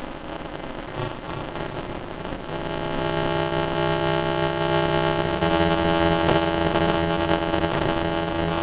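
Haunted-house ambient soundtrack: a hissing noise, then about two and a half seconds in a steady droning synthesizer chord comes in and holds.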